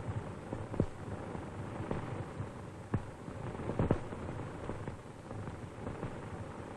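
Surface noise of an old film soundtrack: steady hiss with a faint hum and a few scattered sharp crackles.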